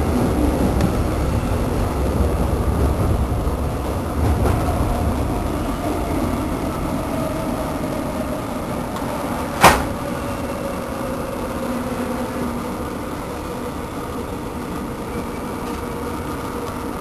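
Train running, heard from inside the carriage: a steady low rumble of wheels on rails, with a faint tone slowly falling in pitch through the middle and a single sharp knock about ten seconds in.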